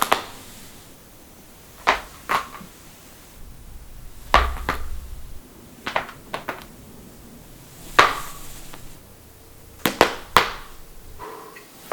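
Neck joints cracking: a series of sharp pops, some single and some in quick pairs or runs, coming every one to two seconds.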